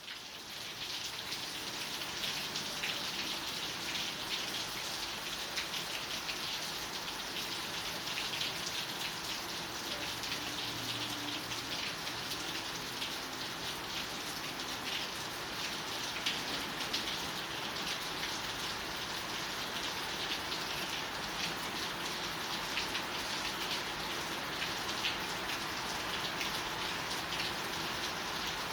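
Steady rain falling: an even hiss with a dense patter of individual drops.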